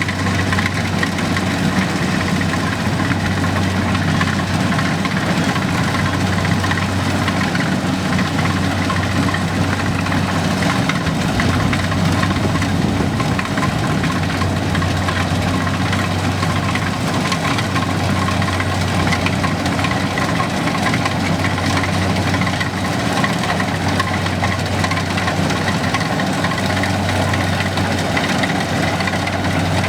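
An engine running steadily at a constant speed, a low even hum with a rough mechanical rattle over it.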